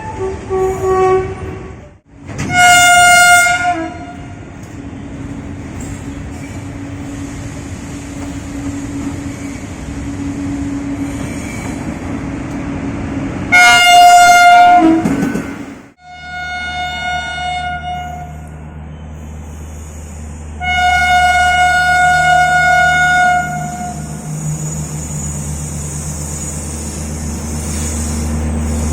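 Indian Railways locomotive horn sounding four loud blasts over the rumble of a running train. The blasts are at a steady single pitch, and the last one is held for about three seconds. A steady low engine hum runs under the second half.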